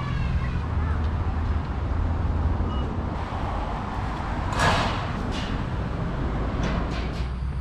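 Large diesel truck engine idling steadily with a low hum amid road traffic. A short, sharp hiss comes about four and a half seconds in.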